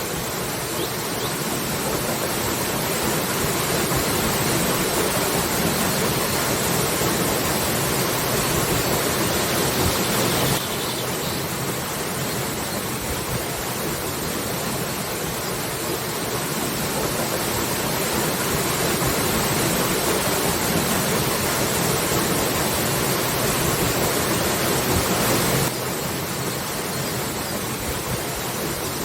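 Waterfall: a steady, full rush of falling water that slowly swells in level, then drops abruptly about a third of the way in and again near the end.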